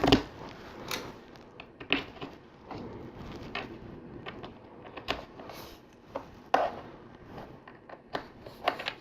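LEGO Technic pieces being handled and pressed together: irregular plastic clicks and light knocks, a few sharper snaps among softer rattling.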